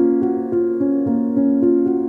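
Background music: a keyboard instrument playing an even run of notes, about four a second.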